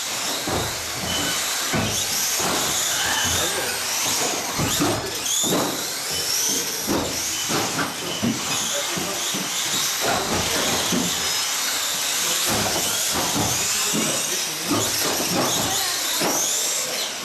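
Small electric 1/18-scale off-road RC cars racing on an indoor carpet track: high-pitched motor whines rising and falling as they speed up and slow down, over a steady hiss with occasional knocks, and voices in the hall.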